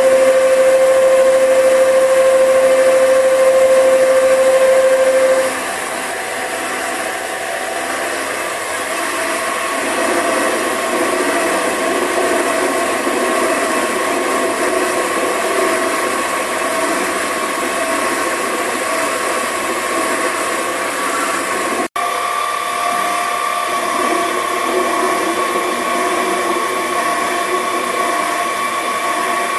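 Mini metal lathe running under power, its motor and gears giving a steady mechanical whir. A loud steady whine sounds for about the first five seconds, then stops while the lathe keeps running.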